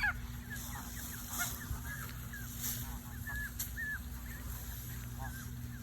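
Goslings peeping: many short, high chirps throughout, with one louder falling goose call at the very start. A steady low hum runs underneath.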